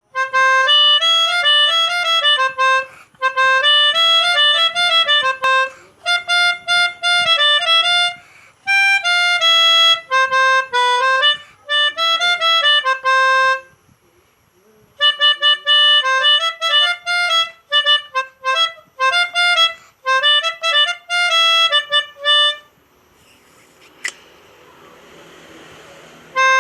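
Melodica (pianika) playing the 'telolet' bus-horn tune in short phrases of quick notes with brief pauses between them. The playing stops a few seconds before the end, leaving faint hiss and a single click.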